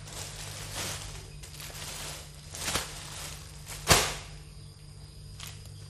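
Foil balloons and their plastic wrapping being handled: a few short rustles and crinkles, the loudest about four seconds in, over a steady low hum.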